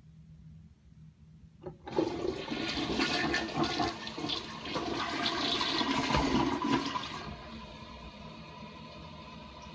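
Toilet flushing: a click, then a loud rush of water for about five seconds, dropping to a quieter steady running of water.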